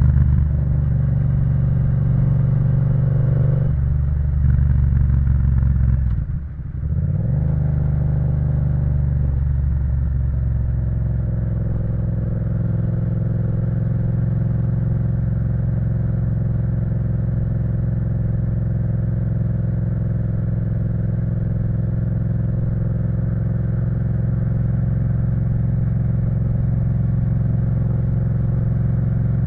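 Yamaha MT-07's parallel-twin engine through an Akrapovic full exhaust system, running while riding. About six seconds in the revs dip briefly and climb back, then the engine holds a steady pitch at a constant cruise.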